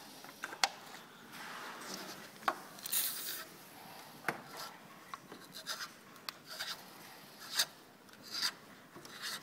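Time-Sert countersink bit cutting into the freshly drilled hole of a metal bracket: intermittent scraping and rasping with sharp clicks.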